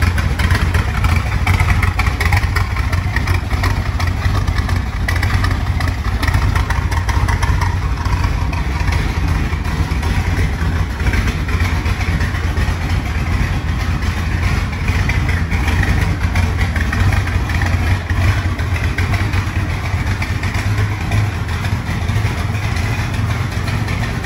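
A 1960s Corvette Sting Ray's 540 cubic inch big-block V8 idling steadily with a deep rumble.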